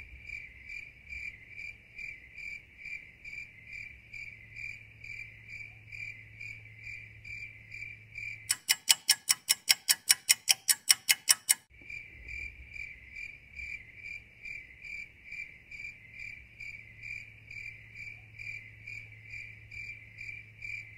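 Cricket chirping, a steady run of short chirps about three a second. About eight seconds in it gives way to some three seconds of much louder, sharp clicking at about five a second, then the chirping resumes.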